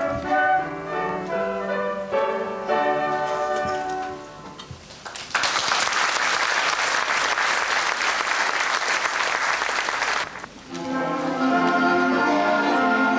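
Two flutes playing the closing notes of a duet, fading out about four seconds in, followed by audience applause lasting about five seconds. Near the end another piece of music starts up.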